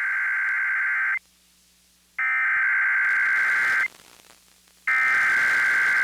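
Emergency Alert System SAME header received on a radio: bursts of digital data tones with about a second of quiet between them. One burst ends about a second in, a second plays in full, and a third starts about five seconds in. The tones are the coded opening of an alert, here a severe thunderstorm watch.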